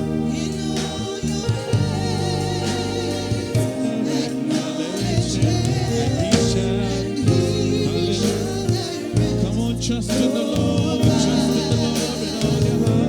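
Gospel worship song: voices singing with vibrato over sustained keyboard and bass accompaniment.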